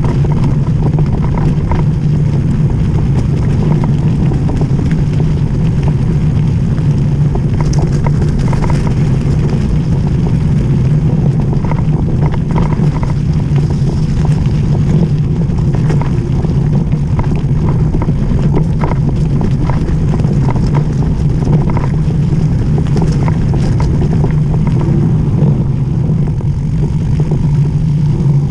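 Mountain bike descending fast over snow, mud and gravel: a loud, steady rumble of tyres on the track and wind on the camera, with many scattered clicks and rattles from stones and the bike.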